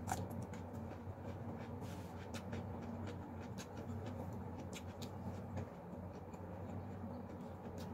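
Eating by hand: irregular crackly clicks of burnt, crisp fried chicken being torn apart and chewed, over a steady low hum.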